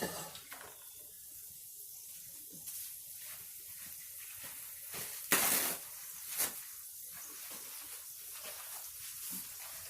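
Small breaded chicken-thigh pieces frying in shallow hot oil, giving a steady sizzling hiss. About five and a half seconds in there is a louder burst of noise, and another short one about a second later.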